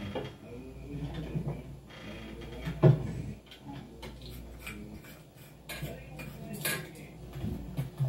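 Scattered light knocks and clatters from a film soundtrack played on a TV, the loudest knock about three seconds in and another sharp one near the end.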